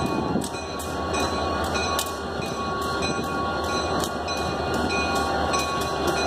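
Diesel locomotive idling with a steady low rumble as it turns slowly on a railroad turntable, with a few sharp, irregular clicks.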